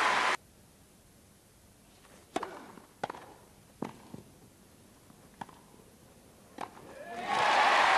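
Crowd applause cut off suddenly at the start, then a tennis rally: about five sharp racket-on-ball hits over four seconds, followed by crowd applause rising again near the end as the point is won.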